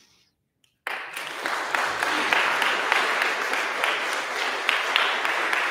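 Audience applauding, breaking out suddenly about a second in after a brief hush and then going on steadily.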